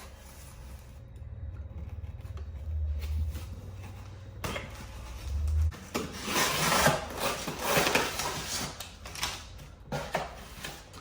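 Hands working at an iPhone 12 Pro's cardboard and paper packaging, making rubbing and scratchy rustling sounds. The sounds come in an irregular run from about halfway in, over a low rumble of handling noise in the first half.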